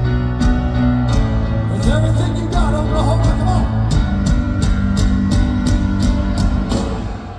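Live rock band playing a slow piano ballad: a grand piano's sustained chords over bass guitar and drums, with cymbals struck about twice a second. The music drops away just before the end.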